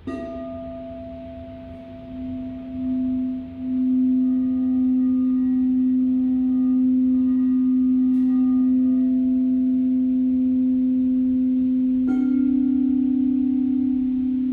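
Singing bowl struck once, its low hum then swelling as the rim is circled and holding steady with ringing overtones. About twelve seconds in, a second bowl is struck, its slightly higher tone beating against the first.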